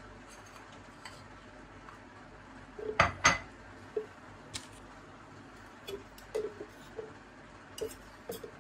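A spoon knocking against the rim of a personal blender jar as sticky Nutella is scraped off it into the jar: two sharp knocks about three seconds in, then lighter taps and scrapes.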